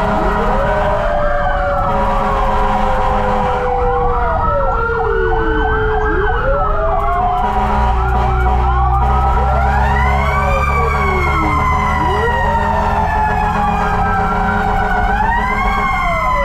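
Fire truck sirens wailing, several at once, in overlapping rising and falling sweeps with a fast warbling yelp among them, heard from inside a fire engine's cab. Under them is the truck's engine rumble, which grows louder about halfway through.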